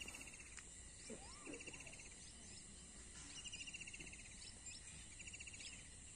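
Faint countryside ambience: short, rapid trills repeat every second or two, with a few rising and falling bird chirps about a second in.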